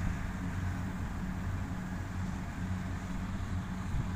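Kubota DC-70 rice combine harvester running steadily while it cuts rice, a constant low engine hum.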